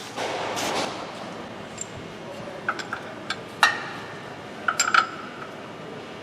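Metal tools and parts clinking: a brief rustle near the start, then a scatter of sharp metallic clinks, a few of them ringing briefly, as hand tools and suspension hardware are handled.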